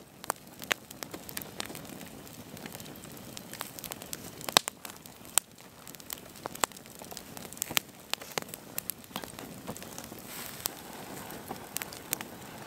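Wood campfire burning under a spit-roasting chicken, crackling with frequent irregular sharp pops over a steady hiss of flame; the loudest pop comes about four and a half seconds in.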